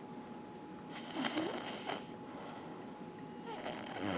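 A person snoring: two noisy breaths, one about a second in and another starting near the end, the second carrying a low droning tone.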